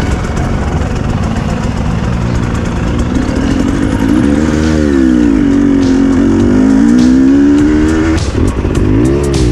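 Enduro dirt bike engine being ridden, its pitch rising and falling with the throttle from about halfway through. There are scattered sharp knocks as the bike goes over rough ground.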